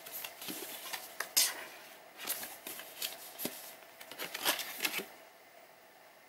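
Paper and thin card rustling and sliding in the hands, with scattered light ticks and taps as a warranty card and leaflets are handled; it dies down about five seconds in.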